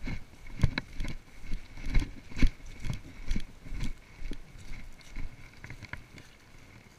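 Footsteps on dry grass: a series of dull thumps, about one or two a second, dying away near the end as the walker stops.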